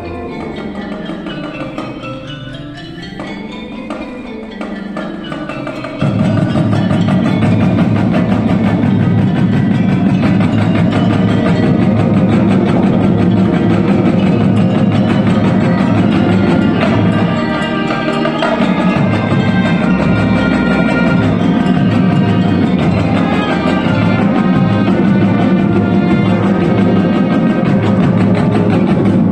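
Junior and senior high school marching band playing its show live, brass and percussion together: softer at first, then the full band comes in loudly about six seconds in, easing off briefly in the middle before building again.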